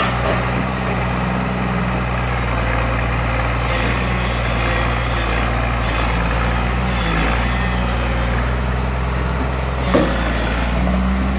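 Komatsu PC200LC-3 excavator's diesel engine running steadily at low rpm, its note shifting briefly a couple of times, with a single knock about ten seconds in.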